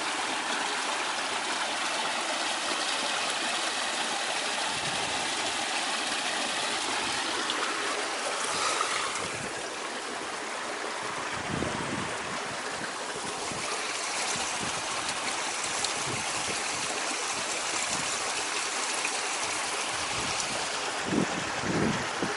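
Small waterfall: water pouring and splashing steadily, with a few low thumps near the end.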